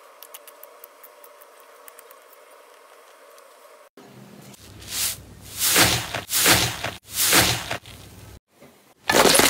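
A few faint ticks as a blade slices a stacked block of green slime. Then, about four seconds in, loud crackling crunches come in repeated bursts as a hand and a finger press into the dried top crust of a purple iceberg slime.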